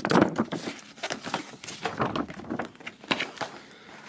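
Folded glossy paper poster being unfolded and handled, with irregular rustling and crackling of the paper.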